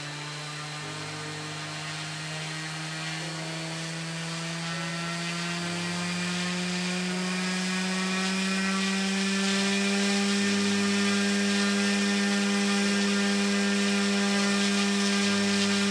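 3D-printed Halbach-array brushless motor driving a two-blade propeller on a thrust stand, powered from a 6-cell battery: a steady pitched whine with many overtones. It rises slowly in pitch and loudness for about the first ten seconds, then holds steady at full speed.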